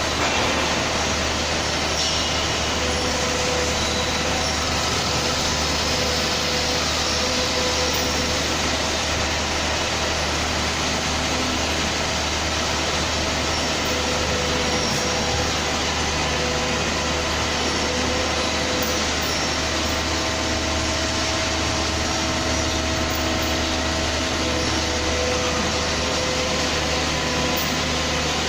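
CNC turning centre running: a steady machine noise with a low hum and a faint tone around the middle of the range that comes and goes.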